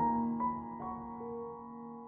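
Background music: slow, soft notes entering one after another over a held low note.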